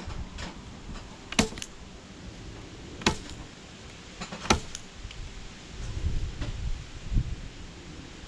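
Five or so sharp knocks and clicks spread a second or two apart, with low bumping around six seconds in, in a small, enclosed space.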